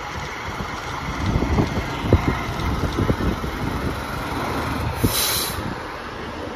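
Diesel engine of an aerial ladder fire truck running as the truck rolls slowly past, with a brief air-brake hiss about five seconds in.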